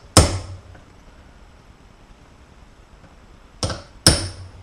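Hand hammer striking a steel pin punch to peen a rivet on a Porsche 944 torque-tube bearing retainer: three sharp metallic blows, each with a short ring. The first comes just after the start and two follow in quick succession near the end. The rivet is being driven to swell and lock itself in.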